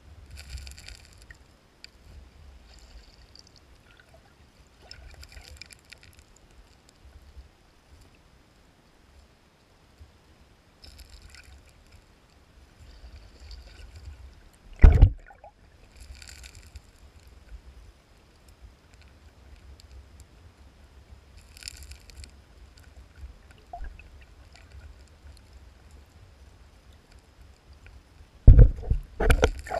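Muffled stream water heard through an underwater camera: a steady low rumble with patches of bubbly hiss every few seconds. One loud knock comes about halfway, and a quick cluster of knocks near the end, as spawning sockeye salmon jostle right against the camera.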